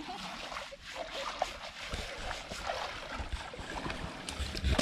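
Shallow river water splashing and trickling as an elephant lying in it is scrubbed by hand, with scattered small splashes and low knocks.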